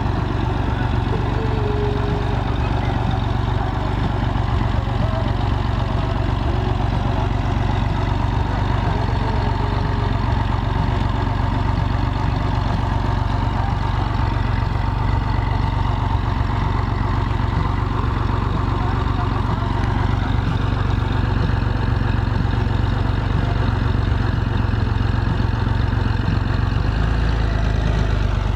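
An engine running steadily at an even speed, with a strong low rumble.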